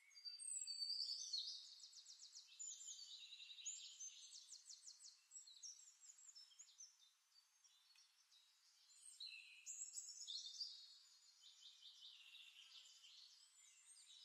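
Faint birdsong: quick chirping and trilled phrases in two spells, one at the start and another about nine seconds in.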